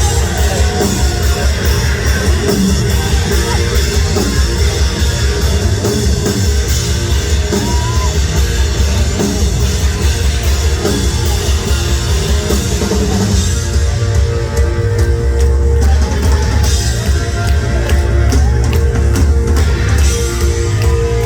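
Rock band playing live and loud, with a driving drum kit and electric guitars, in an instrumental stretch of the song.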